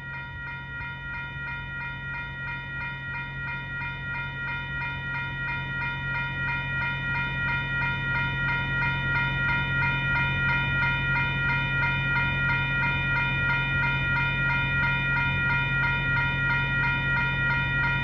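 Railroad grade-crossing warning bells ringing continuously in a fast, even rhythm, growing louder over the first half, with a low steady hum underneath.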